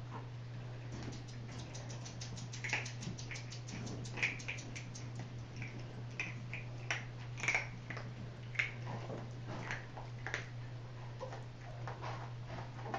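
Puppies pawing and scrambling at a wire exercise pen and a wooden floor: light clicks and taps, a quick run of about six a second for the first few seconds, then scattered single ones with short high squeaks. A steady low hum sits underneath.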